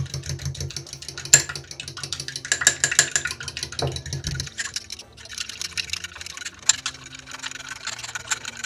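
A fork briskly beating egg yolks and milk in a small bowl: a quick run of clicks as the tines hit the bowl, with the liquid splashing, easing off briefly about halfway through before starting again.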